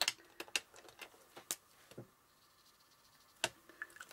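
Light plastic clicks and taps of marker pens being handled: one put down, another picked up and uncapped. There are about ten sharp, irregular clicks, with a quiet gap of a second or so in the middle.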